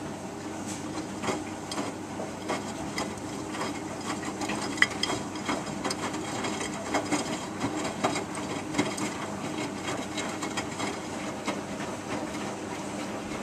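Miele Distinction 3000 front-loading washing machine tumbling a small cottons load in its main wash: the drum turns with a steady churning of wet laundry and water, dotted with many small knocks and clicks. One sharper knock stands out about five seconds in.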